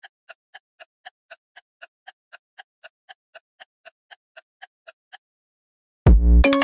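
Clock-like ticking sound effect, about four even ticks a second, stopping a little after five seconds. Near the end a loud deep boom hits and chiming mallet music begins.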